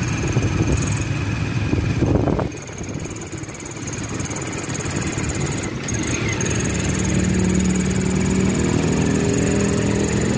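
Street traffic noise of passing cars and motorbikes, cut off suddenly about two and a half seconds in; from about six seconds on, the steady hum of a vehicle engine heard while riding in it.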